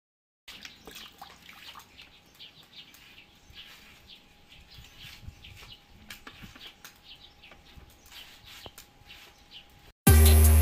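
Faint birds chirping in the background, with a thin steady hum and a few light clicks. About ten seconds in, loud music with a drum beat cuts in suddenly.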